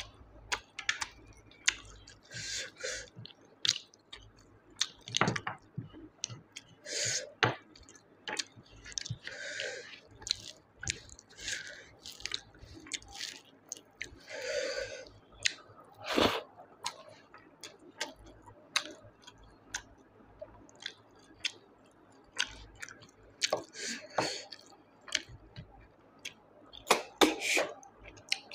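A person chewing a mouthful of snail curry and rice, with many short wet smacks and clicks of the mouth.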